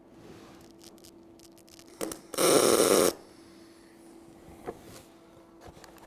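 MIG welder's arc fired once through a spot-weld nozzle to make a single spot weld on sheet steel: a loud burst of arc noise lasting under a second, about halfway in, with a short pop just before it.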